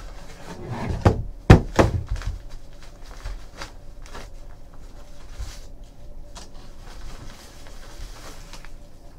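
Hands handling a cardboard collectibles box and lifting a velvet drawstring bag out of it: a few sharp knocks and taps about a second and a half in, then soft rustling and small taps.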